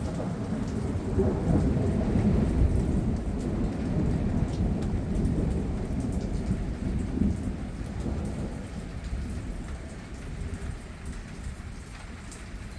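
Long rolling thunder, swelling over the first two or three seconds and slowly dying away over the next several, with steady rain falling throughout.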